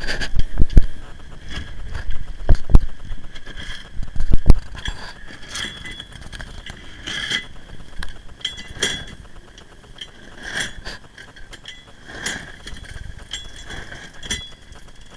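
Sailboat's self-tailing sheet winch being cranked with a winch handle to haul in the genoa sheet, its pawls ratcheting in clicking bursts that repeat every second or two. Loud low thumps in the first few seconds.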